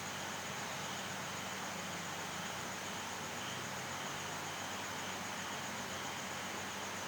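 Steady, even hiss with a faint low hum beneath it.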